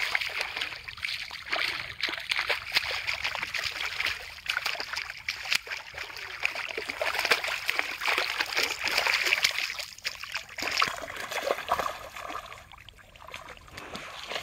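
A hooked rohu thrashing at the water's surface while being played on a rod, splashing hard and repeatedly, with short lulls late on.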